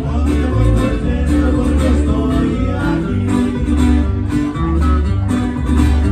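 Band music in a ranchero style, with plucked guitar over a strong bass line and a steady beat.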